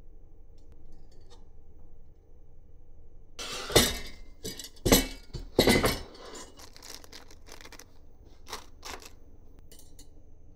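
Hard small parts and tools clinking and clattering as they are handled during 3D printer kit assembly: a cluster of sharp clinks a few seconds in, the three loudest in quick succession, then two lighter clicks near the end.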